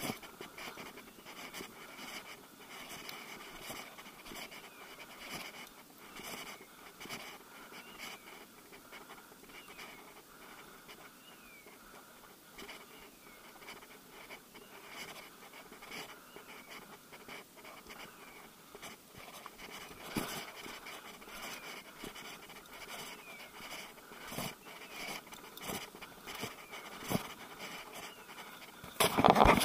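Footsteps crunching and brushing through dry fallen leaves and undergrowth, with panting breath, and a much louder burst of rustling just before the end.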